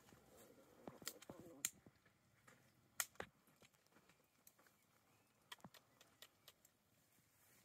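Faint, scattered sharp clicks and taps, about a dozen over several seconds, from small glass drug vials and a plastic syringe being handled as a dose is drawn up.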